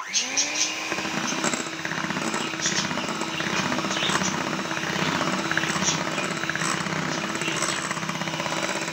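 Electric hand mixer switched on, its motor spinning up quickly to a steady hum as the beaters whip cake batter of eggs, sugar, oil and yogurt, with a dense rattling clatter of the beaters in the bowl.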